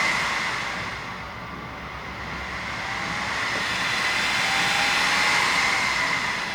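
Newly built desktop PC's cooling fans running fast after power-on, a rushing hum with a steady whine. It eases off about a second in and builds back up over the next few seconds.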